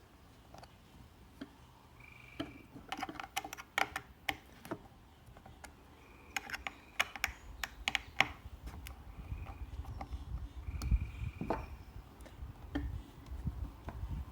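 Small screws being turned out of a puzzle box's panel with a screwdriver: scattered clicks and light taps of the tool and screws, with a few short squeaks.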